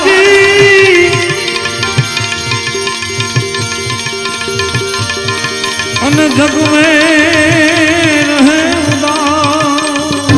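Devotional bhajan music: tabla keeping a steady beat under a melody line. About six seconds in a long, wavering held note with vibrato comes in over the drumming.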